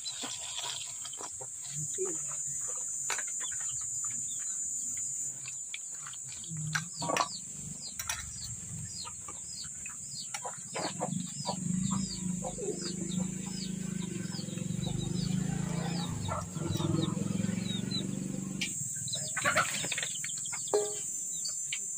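Hands washing cut brinjal pieces in steel bowls of water, with short clinks and knocks of steel dishes. Behind it, a small bird chirps in a regular series of about two calls a second midway, over a steady high-pitched insect drone.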